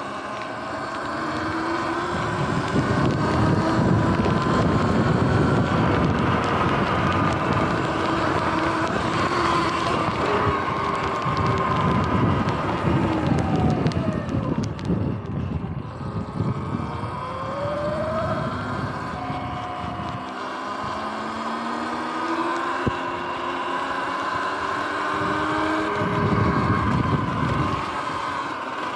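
Sur-Ron electric dirt bike riding at speed, its motor and drive whining in several tones that rise and fall in pitch as the rider speeds up and slows. Wind buffets the microphone in gusts.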